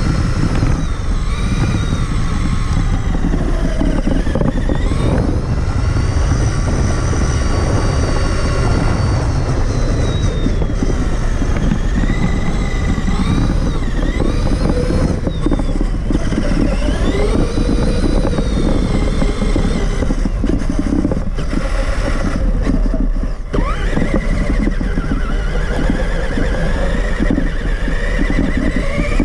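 Traxxas Summit RC truck's electric motor and drivetrain whining, the pitch rising and falling again and again with the throttle. Under it runs a constant heavy rumble of wind and chassis noise, heard through a camera mounted on the truck.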